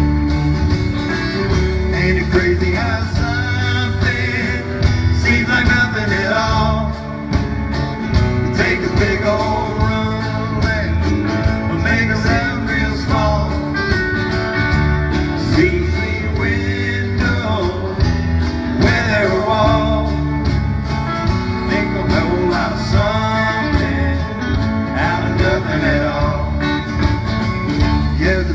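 Live country music from a small acoustic band: several acoustic guitars strummed over a bass, playing steadily with a melody line above.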